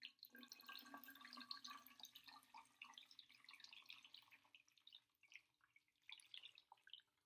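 Faint trickling and dripping of water poured from a plastic measuring cup into a narrow plastic water bottle, thinning out to scattered drips in the last couple of seconds.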